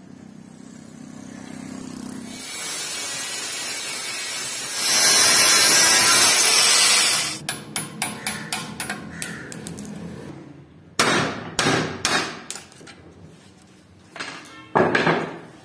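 A few seconds of loud grinding on steel, then a quick run of light taps and several heavy hammer blows on a chisel set against the rusted steel socket of a shovel, working at the rivet that holds the handle.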